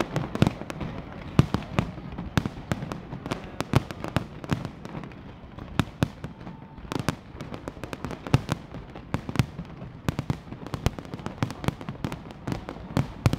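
New Year fireworks display: a dense, irregular string of bangs and crackles, several a second, without let-up.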